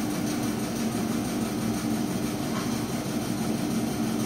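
Vegetable seed coating machine running steadily, a constant motor hum over an even whirring hiss.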